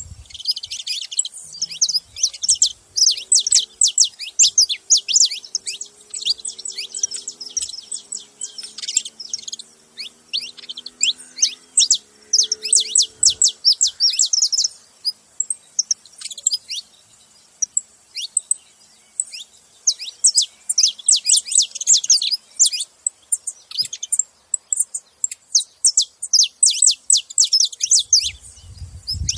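Several saffron finches chirping in fast runs of high, sharp notes, with a quieter spell of a few seconds midway.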